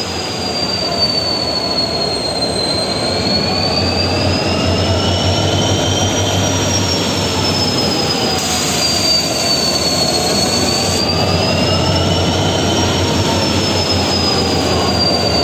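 Diesel locomotive (a 3000 HP Cape gauge unit) running, with a dense, steady mechanical noise and a high squeal that slowly wavers up and down in pitch.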